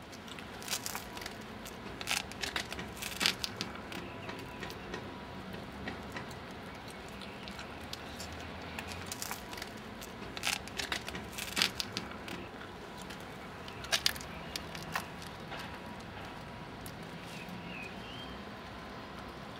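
Steady background hum with scattered sharp clicks and crackles, bunched in a few short clusters, and a brief faint chirp near the end.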